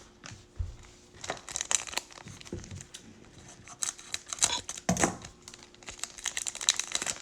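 Plastic wrapper of a football trading-card pack being torn open and crinkled by hand, a run of irregular crackles and rustles.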